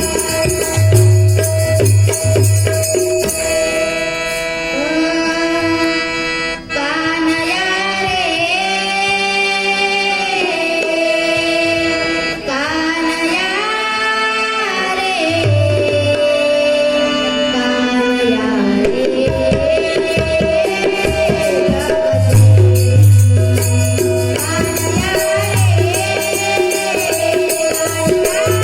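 Devotional bhajan music: a child singing a gliding melody over a harmonium's sustained reed tones, with small hand cymbals ticking in time. A hand drum plays at the start, drops out, and comes back in the last few seconds.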